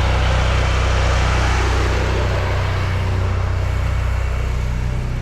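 An engine running steadily with a low, even hum, and a broader rushing noise over it that fades about halfway through.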